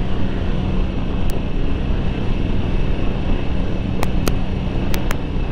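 Harley-Davidson Sportster 1200 Low's air-cooled V-twin running at a steady road speed, with a constant low engine note under heavy wind and road noise on the bike-mounted microphone.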